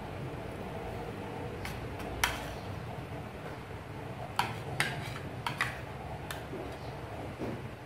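A metal fork clinking and scraping against a ceramic plate while picking the flesh off a cooked fish: a handful of short, sharp clicks, the loudest about two seconds in and a cluster of them in the second half, over a steady low hum.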